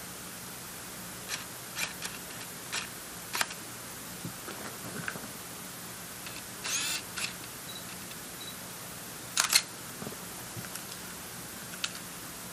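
A digital SLR camera with a zoom lens being worked: a scattering of small mechanical clicks, a short whirr about seven seconds in, and a louder double clack about nine and a half seconds in.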